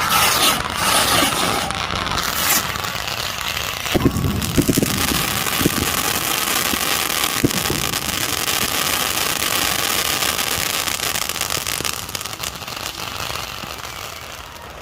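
Fireworks going off: a dense, continuous crackle, with a cluster of sharper bangs about four seconds in and another single bang a few seconds later.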